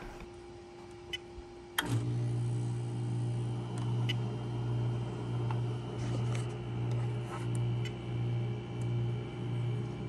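Rheem hybrid heat pump water heater running in heat pump mode: a steady low hum that swells and fades about one and a half times a second. It starts abruptly after a sharp click nearly two seconds in, with a few faint clicks before and during it.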